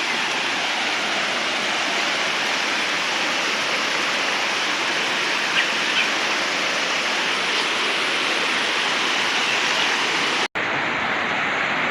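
Steady rushing noise of flowing water, even and unbroken, with two faint short sounds about halfway through. The sound cuts out for an instant near the end, then resumes.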